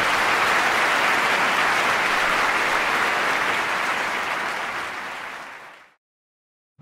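Audience applauding, fading out over the last couple of seconds into silence.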